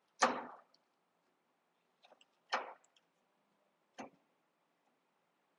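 Three sharp knocks, the first the loudest, as the top-wing post pieces are fitted onto the top of a sprint car's roll cage.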